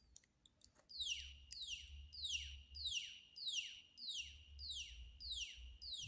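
Buzzer of a micro:bit gas-leak alarm sounding a repeating falling electronic sweep, about one and a half a second, starting about a second in after a few faint clicks. It is the alarm's response to the MQ-4 sensor detecting gas from a lighter held at it.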